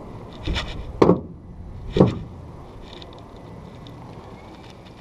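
A soft knock and then two louder, dull knocks about a second apart, from a pot magnet and its paracord being handled against a plastic truck bed liner.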